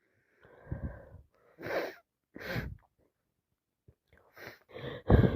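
A congested woman with a head cold breathing in heavy, noisy breaths, then, after a short pause, a quick run of catching gasps that builds into a loud sneeze near the end.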